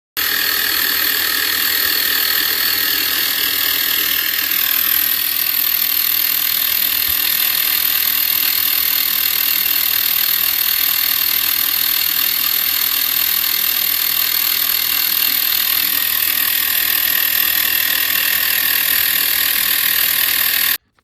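CYCPLUS 150 PSI battery-powered mini air compressor running, a loud steady high-pitched mechanical buzz that stops abruptly near the end.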